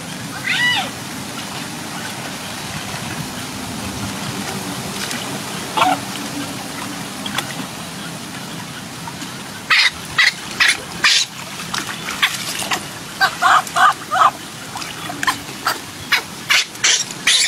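Baby monkey crying: one falling squeal about a second in, then from about ten seconds in a rapid run of short, sharp squeals over a steady low hum.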